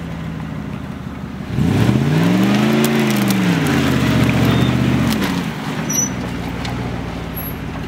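Jeep Grand Cherokee's engine under load, crawling over rough off-road ground: a steady run that is revved up about one and a half seconds in, its pitch rising and then falling back over about three seconds before it settles to a steady, lower note.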